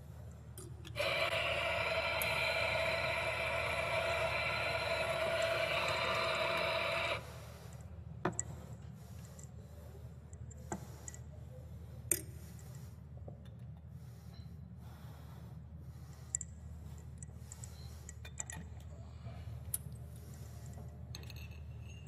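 Coffee grinder motor running steadily for about six seconds, starting about a second in and cutting off sharply. After it come scattered sharp clinks and knocks.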